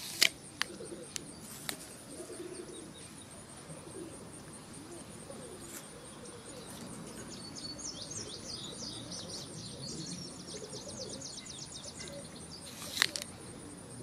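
Birds chirping, with fast high trills about halfway through, over a steady outdoor background, and a few sharp clicks near the start and one near the end.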